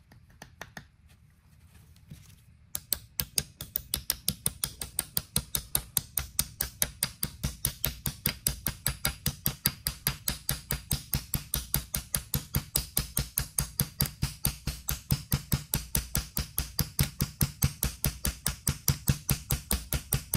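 Rapid, light, evenly spaced metal-on-metal taps, about five a second, starting about three seconds in: a new ball bearing being tapped onto a motorcycle gearbox output shaft, striking only the inner race so as not to damage the bearing.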